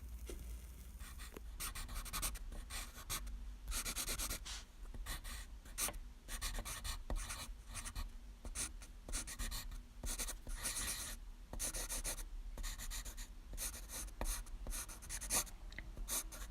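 Writing sounds: irregular light taps and short scratchy strokes, uneven in spacing, over a steady low hum.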